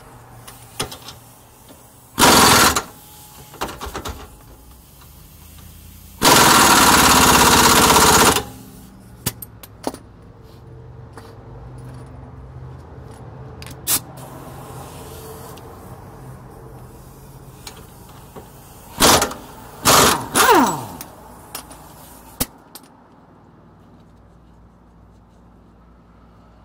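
Impact wrench hammering in bursts: a short burst about two seconds in, a longer one of about two seconds around six seconds in, and three short bursts near the end, the last winding down in pitch. It is drawing a new wheel stud into the rear drum-brake hub with an open-ended lug nut and washer.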